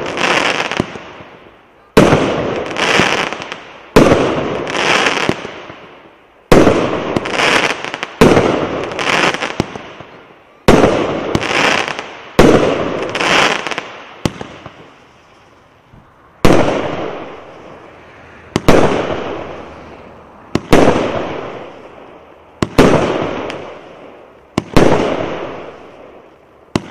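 A 1.2-inch consumer fireworks cake firing shot after shot, about one every two seconds: each a sharp bang followed by a burst whose noise fades over a second or two, some with a second bang about a second after the first.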